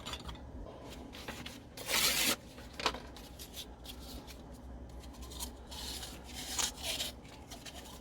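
Fine 1500-grade wet and dry abrasive paper rubbing against the steel bearing race inside a bicycle rear hub, hand-polishing residue off the race surface. Irregular scraping strokes and small clicks, with one louder scrape about two seconds in.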